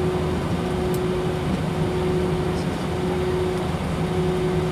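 Steady cabin drone inside an Airbus A321 taxiing on idle thrust: jet engine and air-conditioning noise with a constant low hum and a steady mid-pitched tone.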